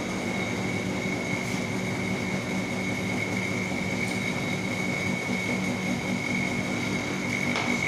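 Refrigerant vacuum pump running steadily while evacuating an air conditioner's refrigerant lines, a constant high whine over a low motor hum.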